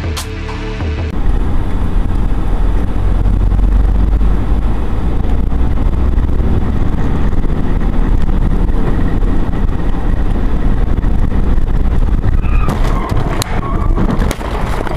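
Steady rumble of a moving car, engine and road noise, with a few sharp knocks near the end.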